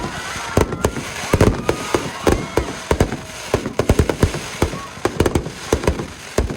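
Fireworks display: many shells bursting in quick, irregular succession, several sharp bangs a second over a steady crackle.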